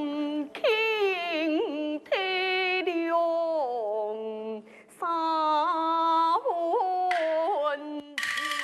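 A woman's voice singing a Taiwanese opera (gezaixi) aria line in long, sliding, ornamented phrases over instrumental accompaniment. A loud, noisy burst of accompaniment comes in just before the end.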